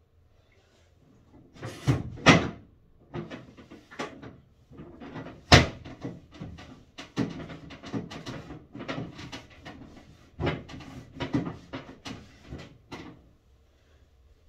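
Household handling noise: cloth rustling mixed with irregular knocks and clatters, the sharpest knock about five and a half seconds in.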